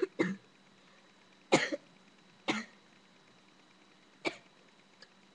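A boy coughing: four short, sharp coughs, one to two seconds apart.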